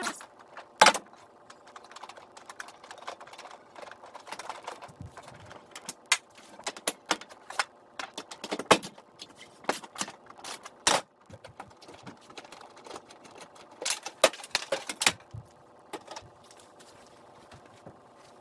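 Hand tools clicking and clinking on metal bolts and the plastic cowl panel as it is unbolted, irregular sharp clicks and knocks that thin out near the end.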